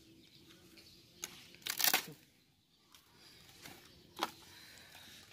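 Thin dry wood splinters being snapped and torn apart by hand: a few crisp cracks, the loudest a short tearing crack about two seconds in and another sharp snap a little after four seconds.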